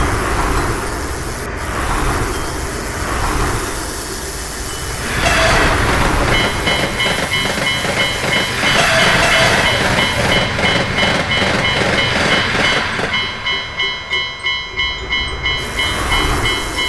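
Electric train running past with a steady rumble and clatter, louder from about five seconds in, while a Japanese level-crossing alarm bell starts its rapid repeated 'kan-kan' ringing about six seconds in. Near the end the train noise drops away and the crossing bell rings on alone.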